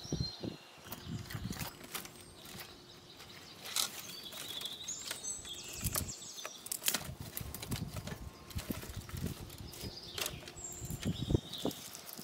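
Dry branches and twigs being handled and broken by hand: rustling and scraping of brittle wood with many sharp snapping cracks. Birds chirp in the background.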